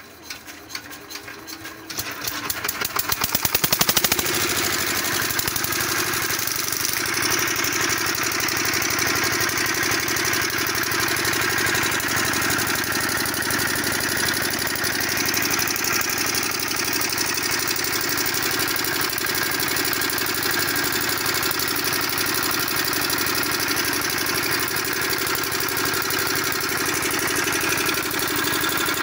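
Comet 5 HP single-cylinder diesel pumpset engine being hand-cranked, the cranking speeding up until the engine catches about four seconds in. It then runs steadily.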